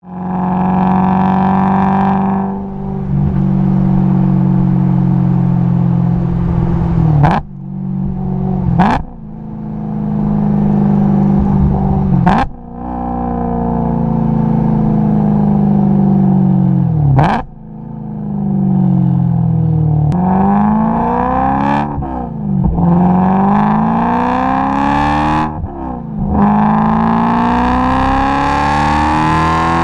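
BMW E92 M3's V8 through an Eisenmann Race exhaust with a Macht Schnell X-pipe, driven on the road. It cruises and coasts with the pitch slowly falling, with a few sharp cracks as the throttle closes. Near the end it accelerates hard through the gears in three rising sweeps.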